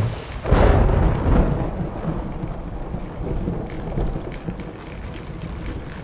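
Thunder rumbling over steady rain. A deep rumble swells about half a second in, then fades into a lower continuous rumble and rain hiss.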